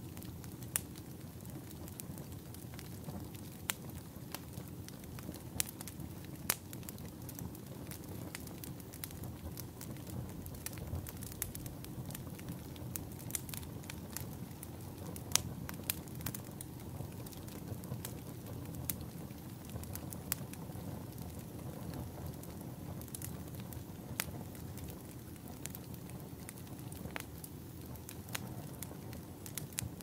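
Firewood burning in a campfire: a steady low rushing hiss with irregular sharp crackles and pops throughout.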